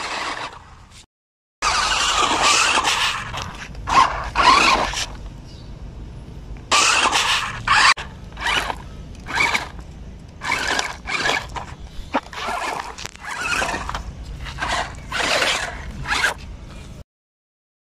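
Toy RC stunt car's electric motors whirring in a long series of short throttle bursts as the car is driven over loose gravel. The bursts stop about a second before the end.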